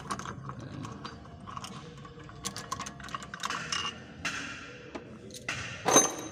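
Metal tools working on a car's front wheel and brake: scattered metallic clicks and ratcheting, a hiss about four seconds in, and a loud metallic clank with a short ring near the end.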